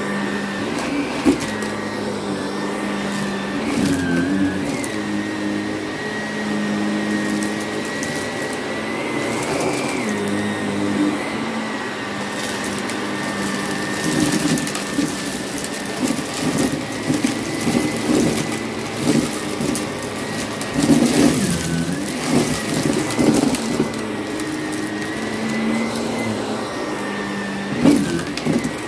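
Vacuum cleaner running over a rug with a steady high motor whine and low hum. The whine dips briefly now and then as it is pushed, with rougher brushing and rustling noise in the second half.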